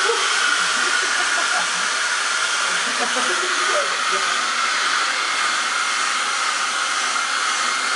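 Hair dryer running steadily, blowing hot air: an even hiss with a faint steady whine.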